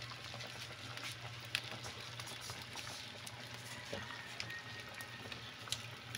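Pork sinigang broth boiling in a wide metal wok over a wood fire: steady bubbling with scattered small pops.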